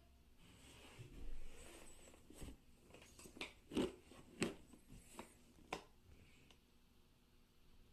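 Hard plastic tool carry case handled and turned over in the hand: a short rub, then a string of sharp plastic clicks and knocks.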